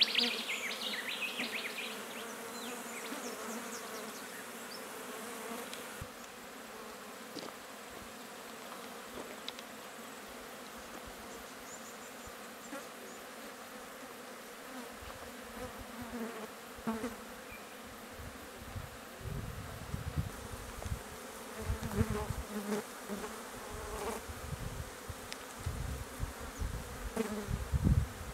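Flies buzzing around a roadkill wombat carcass, a steady drone that wavers in pitch. A brief burst of high chirping comes at the start, and low rumbling thumps come and go in the second half.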